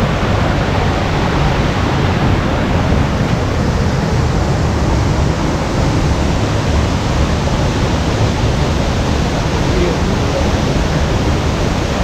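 Water of a waterfall rushing steadily: a loud, even hiss with no breaks.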